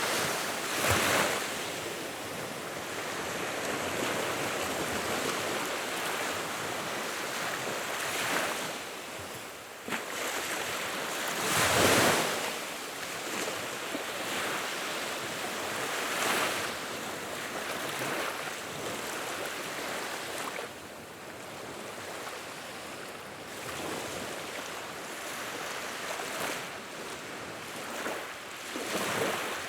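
Wood fire burning with a steady rushing hiss and crackle, swelling in louder surges about a second in, near the middle, and again near the end.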